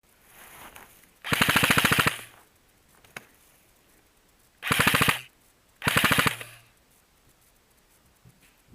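Airsoft rifle firing in three short full-auto bursts, a rapid even rattle of shots: the first just under a second long, the other two about half a second each and close together.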